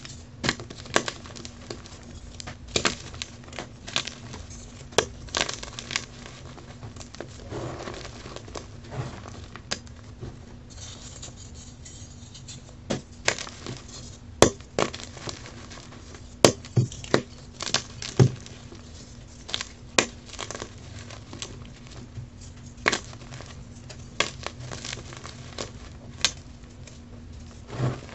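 Blocks of dyed gym chalk being squeezed and crushed by hand, giving irregular sharp crunches and cracks as the blocks snap and crumble, with softer gritty crumbling in between.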